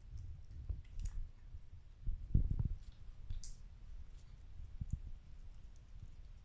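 Two British shorthair cats licking a creamy paste treat from a squeezed tube: soft wet clicks of tongues lapping, with dull low thumps of handling, the loudest about two and a half seconds in.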